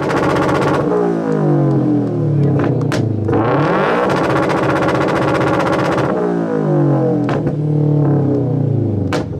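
Modified car exhaust, loud, as the engine is revved hard: the revs fall away, climb again and are held near the top for about two seconds, then drop. A few sharp cracks come around three seconds in and again near the end.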